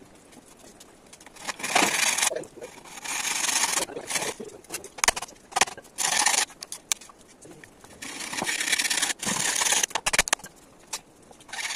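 Machete chopping and shaving bamboo: irregular sharp knocks mixed with scraping strokes of under a second each.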